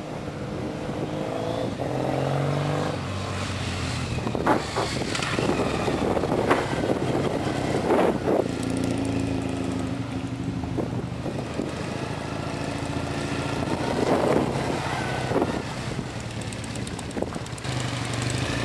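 Motorcycle engines passing one after another, their notes rising and falling in pitch as the bikes accelerate past and move away.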